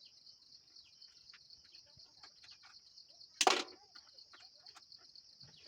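Crickets chirring steadily in the background, over faint small clicks and ticks of a screwdriver working the screws out of a drill's housing. A single louder knock comes about three and a half seconds in.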